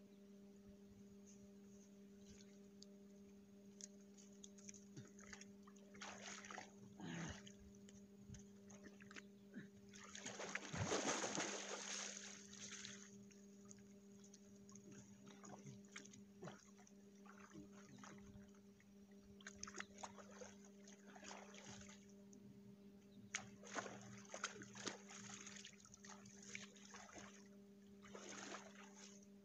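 Water splashing and sloshing as a man standing in a shallow river pool scoops water over himself. The splashes are faint and come in irregular bouts, the longest and loudest about ten to thirteen seconds in, over a steady low hum.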